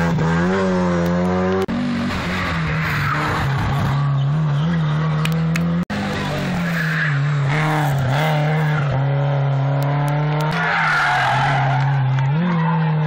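Rally cars driving hard through a tight tarmac hairpin: engines revving and tyres squealing through the turn. The sound breaks off sharply twice.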